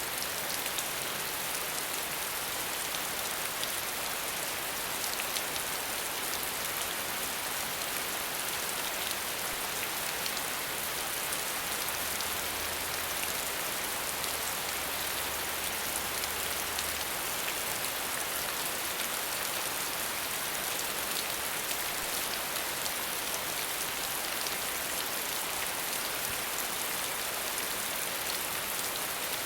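Water falling steadily, a continuous hiss flecked with fine splashing drops.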